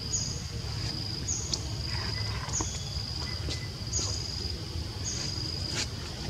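Insect calling in forest undergrowth: a steady high-pitched buzz, with a short falling chirp repeating about every second and a quarter, over a low steady rumble.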